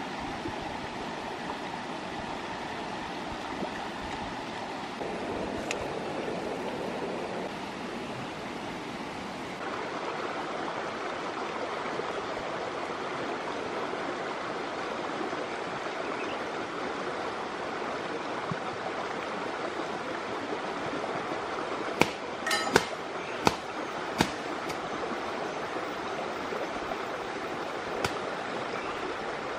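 Stream water rushing over rocks in a steady, even wash. A few sharp clicks and knocks come near the end.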